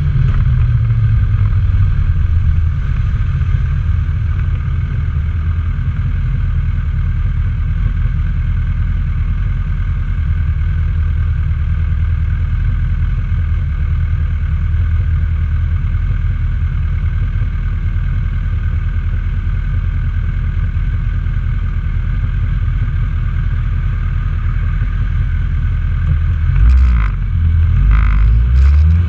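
Honda CB1000R's inline-four engine dropping in pitch as the bike slows, then idling steadily for most of the time. Near the end come a few short clicks, and the revs start to rise as it pulls away.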